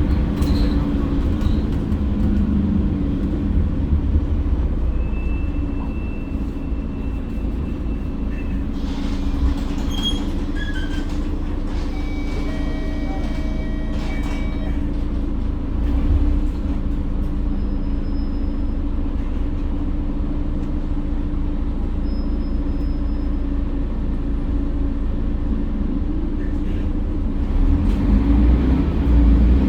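Mercedes-Benz OC500LE single-deck bus running, a steady low engine drone. A few short high electronic tones sound about halfway through, and the engine grows louder in the last couple of seconds.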